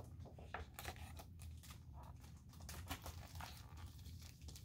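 Faint rustling and crinkling with scattered small clicks, handling noise from the paper picture book.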